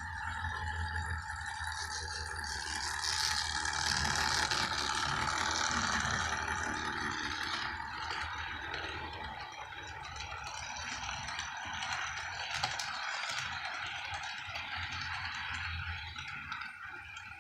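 HO scale model freight train running on its track: a steady mechanical rattle and whir, loudest a few seconds in and easing off afterwards.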